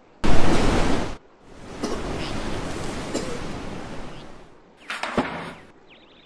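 Water splashing: a loud, sudden splash about a quarter second in, then a longer stretch of rushing water, and a shorter splash near the end.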